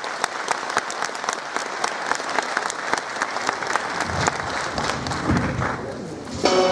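Concert audience applauding, with dense, irregular clapping.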